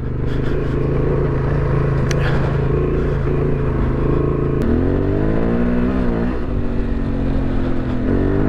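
Honda Transalp 750's parallel-twin engine running under throttle on a dirt trail. The pitch drops sharply about halfway through, then climbs, dips again and climbs, as the revs fall and rise. A couple of brief sharp clicks sound in the first half.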